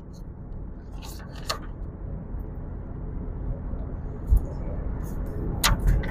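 Steady low rumble of a vehicle driving along the track, with a few faint knocks and clicks through it.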